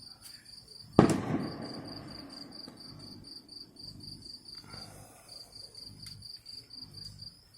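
A single firework bursts with a sharp bang about a second in, and its low rumble fades away over the next couple of seconds. Insects chirp in a steady, fast, high pulse underneath.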